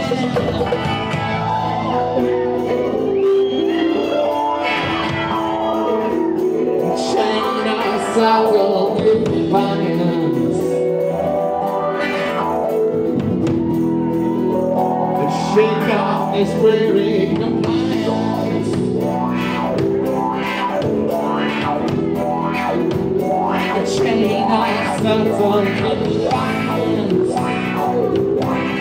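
Live band music: a guitar-led song with instruments and singing, played on stage and heard from the audience.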